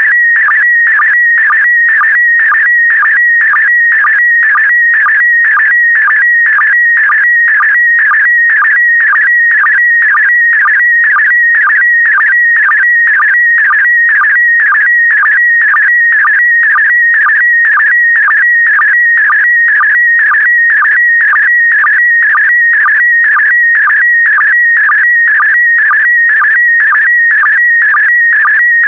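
Slow-scan TV (SSTV) signal in PD120 mode: a loud, steady warbling tone near 2 kHz, broken about twice a second by a short, lower sync blip. It is an image being sent scan line by scan line.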